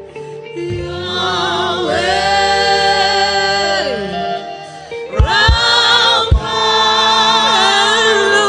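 Gospel worship music: voices holding long sung notes with vibrato, without clear words, with a few deep thumps about five to six seconds in.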